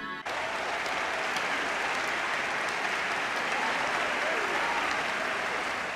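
An audience applauding, starting just as a song ends and tapering off slightly near the end.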